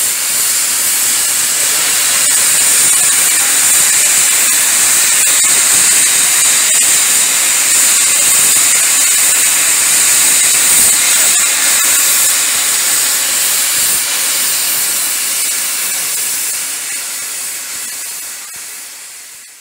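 Stanier LMS Black Five 4-6-0 steam locomotive standing with its safety valves blowing off: a loud, steady hiss of steam that fades away over the last few seconds.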